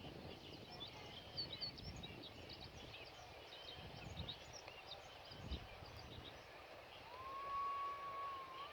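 Small birds chirping in quick, scattered high notes over a low rumble of wind. Near the end comes one long whistled note that rises briefly and then holds steady for about a second and a half.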